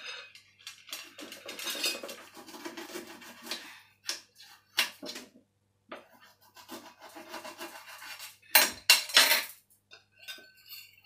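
Metal spoon scraping and stirring in a ceramic bowl as a chili, fish-sauce and lemon dressing is mixed, with sharp clinks of spoon on bowl. The scraping runs for a couple of seconds early on, and a loud clatter comes near the end.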